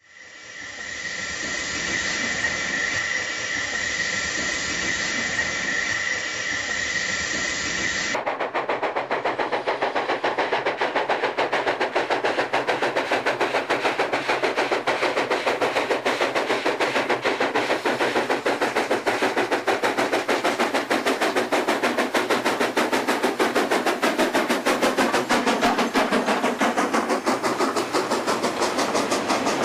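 Steady steam hiss from a standing steam locomotive, with a constant high tone through it. After a sudden change about eight seconds in, a steam locomotive hauls a freight train, working hard with rapid, evenly spaced exhaust beats, several a second, that run on as the freight wagons roll past.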